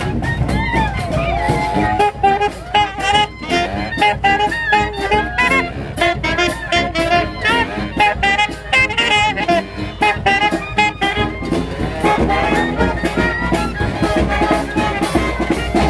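A street band playing a gospel tune, with horns carrying a wavering lead melody over steady drum beats. About twelve seconds in, the lead line drops away and the full band carries on.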